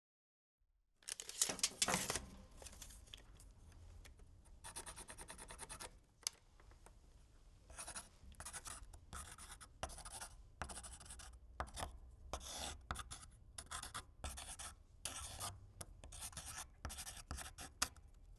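A hand tool scraping across wood in repeated back-and-forth strokes, as in sanding, rasping or hand-sawing. The strokes start suddenly about a second in, and the loudest come first.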